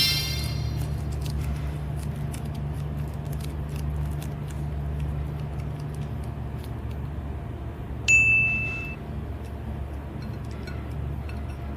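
Steady low hum with faint scattered clicks, and a single bright ding about eight seconds in that rings for under a second.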